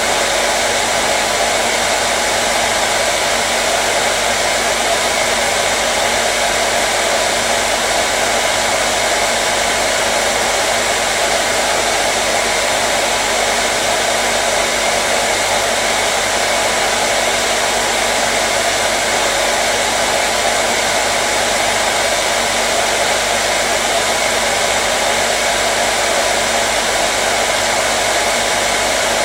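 Handheld hair dryer running continuously: a steady whooshing hiss of blown air with a faint motor hum, unchanging in pitch and loudness.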